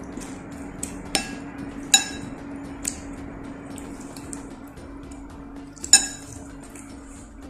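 A metal spoon clinking against a ceramic bowl four times, the last clink the loudest, as raw chicken pieces are turned in a wet milk marinade, with soft wet squishing between the clinks. A steady low hum runs underneath.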